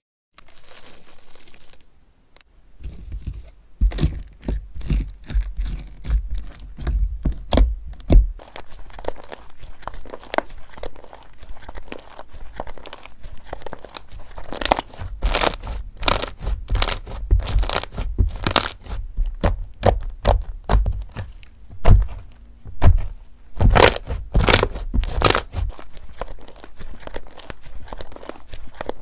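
Slime being squeezed and poked by hand, giving rapid, irregular crackling pops and clicks after a quieter stretching hiss in the first couple of seconds.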